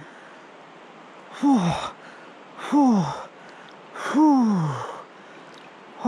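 A man gasping and groaning three times with the shock of cold river water, each a short breathy 'oh' falling in pitch, the last the longest.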